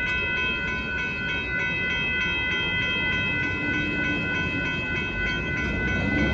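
Amtrak Texas Eagle passenger train rolling past a road crossing: a steady low rumble of the passing cars, with the crossing's warning bell ringing over it in a regular repeating pattern.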